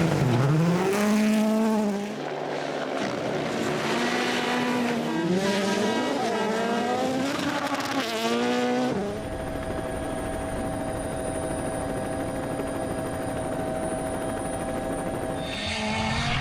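Rally car engine revving hard, its note climbing and dropping again and again with gear changes. About nine seconds in it gives way to a steady, unchanging engine tone for several seconds, and near the end the rising and falling revs return.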